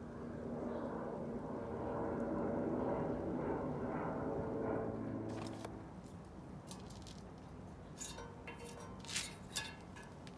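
A steady engine hum, like a passing vehicle, swells and then fades out about six seconds in. After it come a few sharp clicks and crackles, clustered near the end, from small kindling being lit and handled in a small stainless-steel wood stove.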